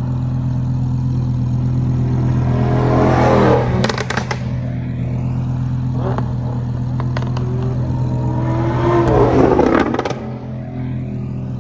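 Two Lamborghini supercars driving past one after the other, each engine swelling to a peak and then dropping in pitch as it goes by, with a quick burst of exhaust crackles just after each pass. A steady low engine drone runs underneath.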